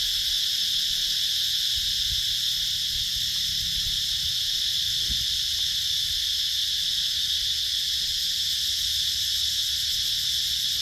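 Steady, high-pitched chorus of insects, an unbroken drone that holds an even level throughout.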